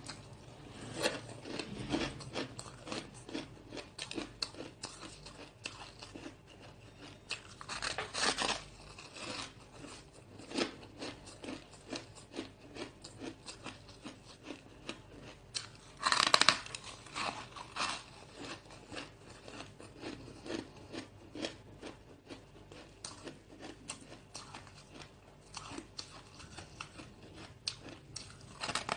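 Hard frozen ice being bitten and chewed, a dense run of small crackling crunches, with louder bites about 8 and 16 seconds in.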